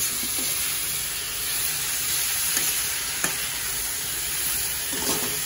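Shredded cabbage, carrot and capsicum sizzling steadily as they are stir-fried in a steel kadai, with a few sharp clicks of the metal ladle scraping against the pan.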